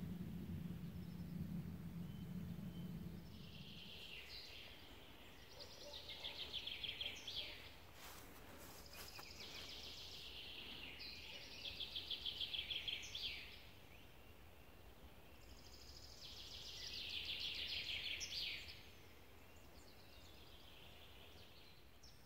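A songbird singing three fast trilled phrases, each two to four seconds long, with pauses of a few seconds between them. A low steady hum fades out about three seconds in.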